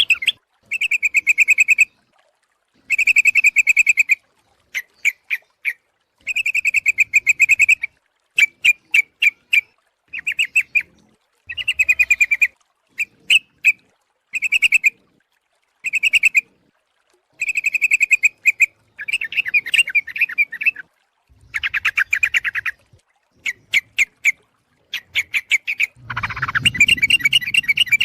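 Yellow-vented bulbul (trucuk) calls from a bird-trapping lure recording: short bursts of rapid chattering notes, each about a second long, repeating with gaps of about a second. A longer, denser burst comes near the end.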